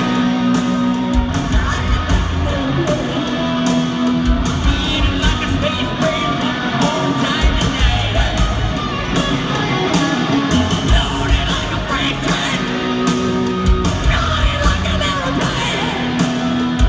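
Hard rock band playing live: shouted, sung vocals over distorted electric guitar, bass guitar and drums, heard through arena loudspeakers from the crowd.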